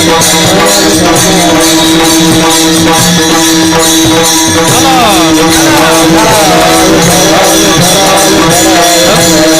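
Devotional kirtan accompaniment: a harmonium holds a steady drone chord while small hand cymbals (taal) clash in a fast, even beat. A voice sings a moving melody over them, most clearly in the second half.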